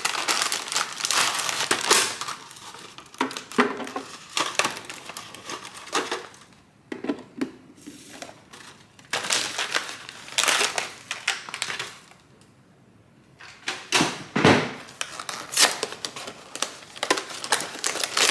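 Packaging crinkling and rustling as it is handled, in irregular bursts with two short pauses.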